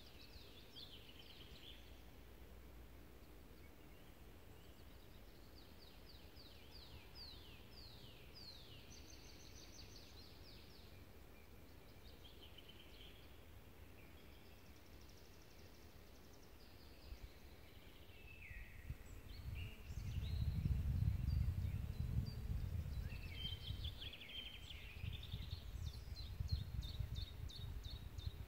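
Songbirds singing outdoors: repeated fast trills of quick descending notes and scattered chirps. About two-thirds of the way through, a loud, gusting low rumble comes in and stays louder than the birds.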